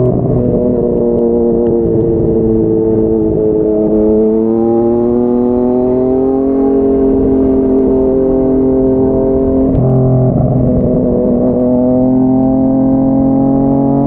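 Yamaha MT-09's inline three-cylinder engine through a Yoshimura R55 slip-on exhaust, heard from the rider's seat while cruising at highway speed. The engine note dips at the start, climbs gently, breaks briefly about ten seconds in, then rises slowly again.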